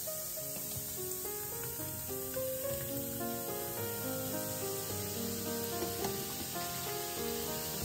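Foam fizzing in a stainless-steel sink drain, a steady hiss, under background music: a light melody of short notes.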